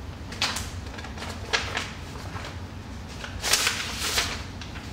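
Paper rustling in short bursts as a manila envelope is handled on a wooden table and photos are pulled out of it, loudest near the end, over a steady low rumble.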